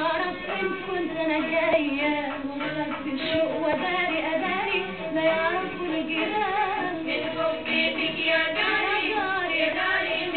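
A woman singing an Egyptian Arabic film song with instrumental accompaniment.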